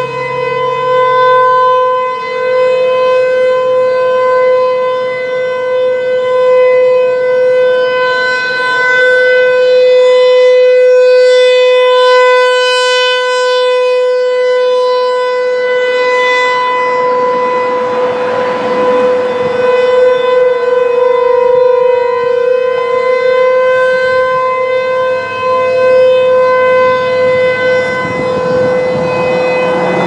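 Federal Signal Equinox electronic outdoor warning siren sounding its steady alert tone at about 500 Hz with a string of overtones. The level swells and fades slowly as the horn rotates.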